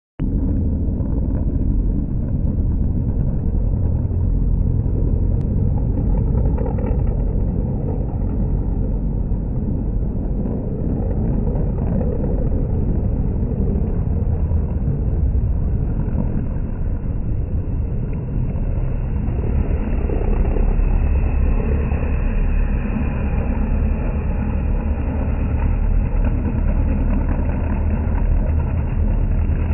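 Stock-bodied race car engines running laps on a short oval, heard slowed down with the slow-motion picture as a steady, deep rumble.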